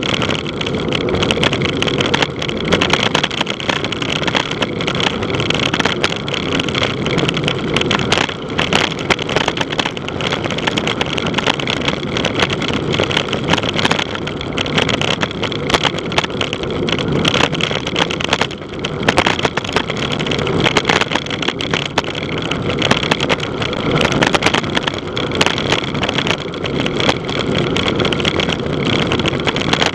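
Loud, steady wind rush and rattle on the microphone of a camera riding along on a moving bicycle.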